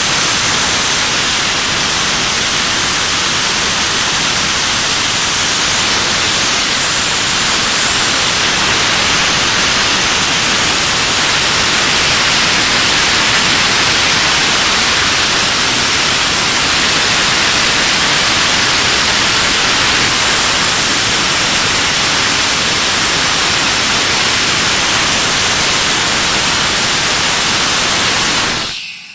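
Loud, steady hiss of compressed air at a pneumatic cylinder rig fed by an air hose, cutting off suddenly near the end.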